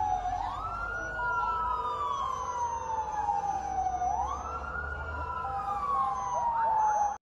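Emergency vehicle sirens wailing. One siren rises quickly and then falls in a long, slow glide, repeating about every four seconds. A second siren sounds alongside it.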